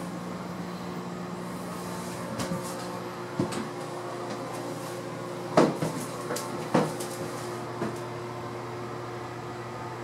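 About five sharp knocks and clacks, spread through the middle of the stretch with the loudest a little past halfway, over a steady low hum.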